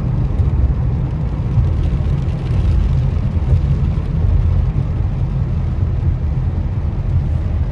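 Steady low rumble of a car driving, heard from inside the cabin, with tyre noise on wet pavement.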